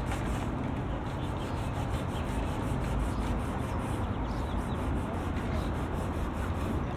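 Steady wind noise on the microphone, a rumbling hiss with no distinct events.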